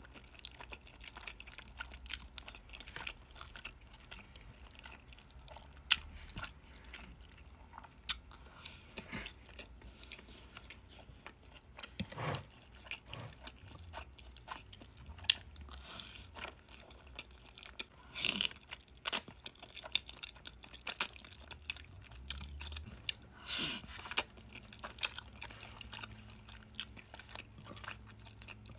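Close-miked eating sounds: a person chewing and biting food, with irregular crisp crunches scattered throughout, the loudest a little past the middle and a few seconds before the end.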